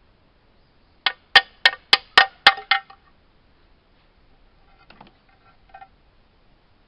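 Loose metal engine parts clinking together: a quick run of about seven sharp, ringing clinks, then a couple of fainter ones near the end.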